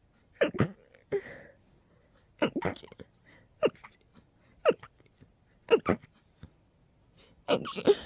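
A person sneezing over and over in a rapid fit of short, sharp sneezes, about one a second and some in quick pairs, with breaths between them. It is a sneezing attack that the sneezer puts down to a cold on top of allergies.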